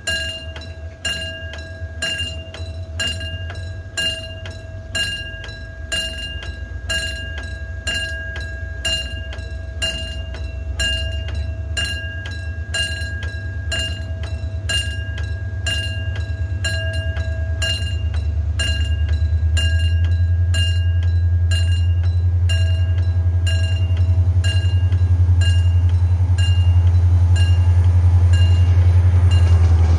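A railway warning bell dings rapidly and evenly, fading toward the end. Under it, the engine of a red Korail diesel locomotive hauling a Mugunghwa passenger train builds into a loud low rumble over the second half as the train pulls away from the station and approaches.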